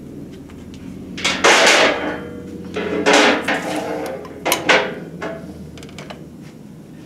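Steel factory GM big-block Chevy connecting rod clanking against the metal fixture of a rod-balancing scale as it is handled and set in place: three clusters of metallic knocks with a short ring.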